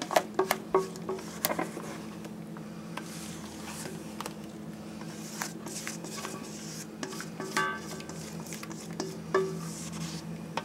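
Spatula scraping a thick, creamy mixture out of a metal mixing bowl into a plastic-wrap-lined metal loaf pan. Bowl and spatula knock and clink against the pan, several times in the first second and a half and a few more times later, over a steady low hum.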